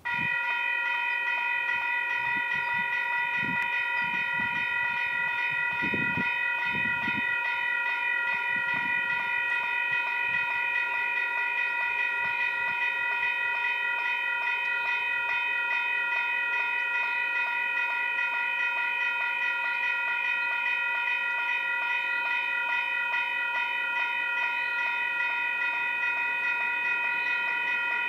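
Railway level crossing warning bell starting suddenly and ringing on without a break, a rapidly repeated ring on several steady pitches. It is the warning that a train is approaching the crossing.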